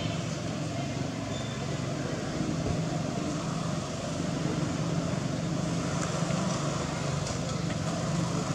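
Steady low rumble of distant motor traffic over an even background hiss.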